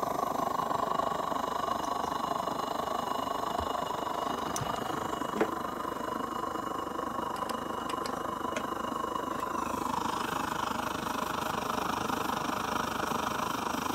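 Vintage Primus 71 petrol pressure stove's burner running at full flame with a steady rushing noise inside its aluminium windshield. A few light metal clinks come in the middle, and the noise changes tone about ten seconds in.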